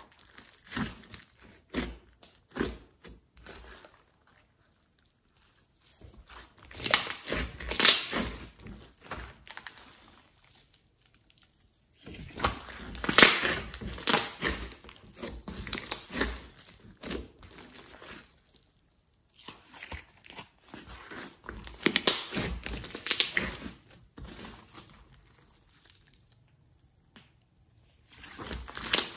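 Hands pressing, squeezing and kneading a thick slime mixed with clay and glitter, in several bursts of squishing and crinkling with short quiet pauses between.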